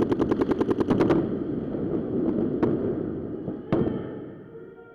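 Paintball marker firing a rapid string of shots, about eleven a second, stopping about a second in; then two single shots, one near the middle and one later.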